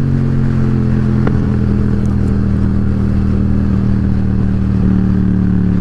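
Yamaha XSR700's parallel-twin engine running at a steady cruising speed, its pitch holding level.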